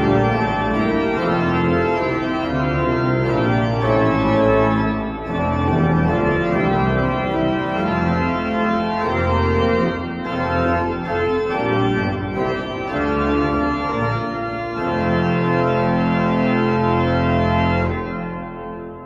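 Church pipe organ playing full sustained chords, closing on a long held chord that is released about eighteen seconds in and fades away.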